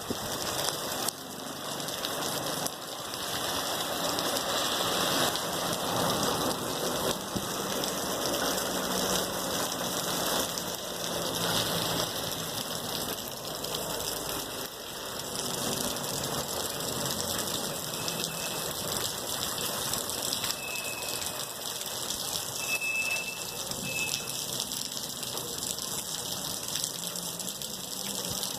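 Heavy rain falling steadily in a continuous downpour, with water pouring and gushing.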